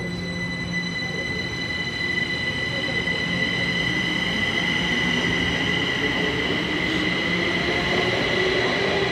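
Kaohsiung MRT Red Line electric metro train pulling out of an underground station and running past, a rumble with a steady high whine on top, growing slowly louder.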